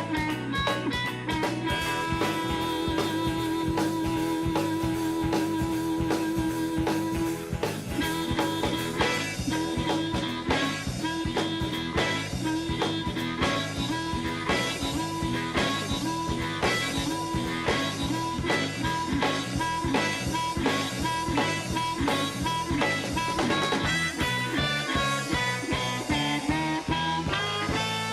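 Blues band playing an instrumental passage, with guitar over a steady drum beat. A single note is held for several seconds near the start, then the line breaks into shorter repeated notes.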